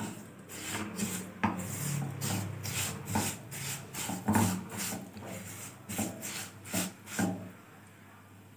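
Silicone spatula stirring and scraping undissolved sugar crystals in water across a nonstick frying pan, the start of a caramel: a run of scraping strokes, two or three a second, that stop about a second before the end.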